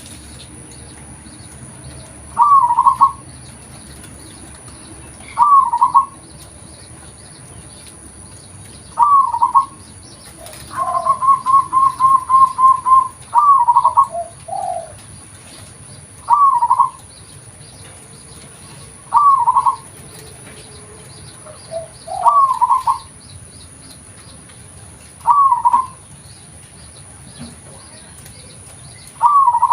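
Local perkutut (zebra dove) calling: short cooing phrases repeated about every three seconds, with one longer rapid run of about nine quick notes partway through.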